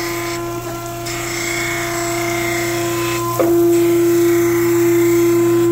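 Surface grinder wheel grinding the face of a hollow prism under flood coolant, a steady pitched hum over splashing. The tone drops back about half a second in and comes back louder about three and a half seconds in.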